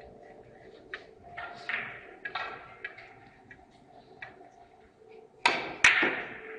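Hard billiard balls clacking: two loud sharp clicks about half a second apart near the end, ringing in the hall, after a few fainter knocks.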